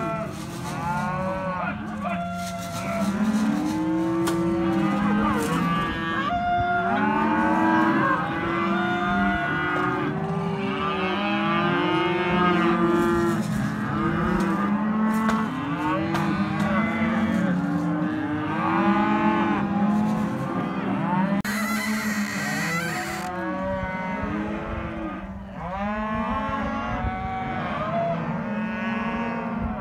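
A large flock of sheep bleating in the pens, many calls overlapping without a break.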